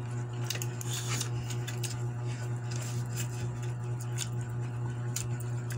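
Eating sounds: chewing and scattered small clicks and scrapes of a spoon and hands on plates of rice, over a steady low hum.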